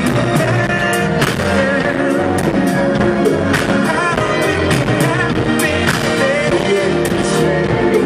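Live soul/R&B band playing: drum kit keeping a steady beat under keyboards, with a male lead vocal at the microphone.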